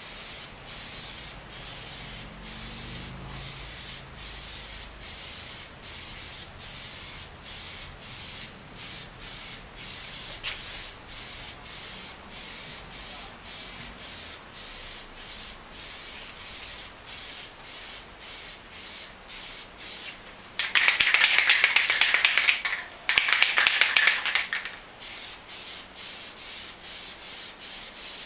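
Aerosol can of Plasti Dip rubber coating spraying in two loud bursts, about two seconds and then a second and a half, with a short break between them. Under them runs a fainter hiss that dips about twice a second.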